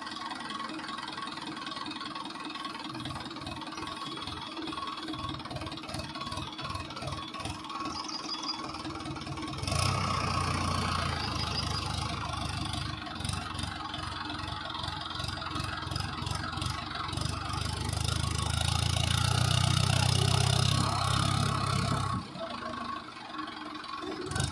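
Mahindra Arjun tractor's diesel engine running under heavy load while stuck in deep paddy mud. It gets louder about ten seconds in and again in the last third, then drops off sharply near the end.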